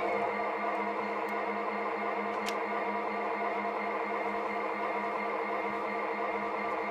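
Sound-equipped O scale model diesel locomotive playing its diesel engine sound through its small onboard speaker: a steady hum with a throb of about four beats a second. A faint click about two and a half seconds in.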